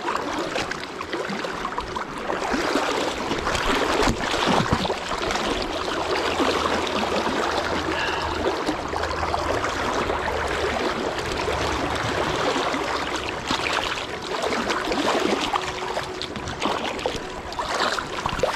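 Fast-flowing river rushing: a steady hiss of moving water, with brief low rumbles on the microphone at times.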